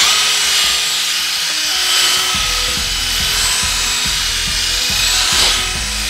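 Porter-Cable cordless drill running steadily under load, with a long metal bit boring down into the soil. The motor gives a constant whine over a gritty grinding noise.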